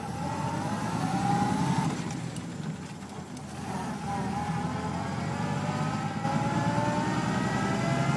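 Willys-Knight sleeve-valve engine pulling the car along, heard from inside the car. The engine note rises, drops back about two seconds in, then climbs steadily again as the car gathers speed.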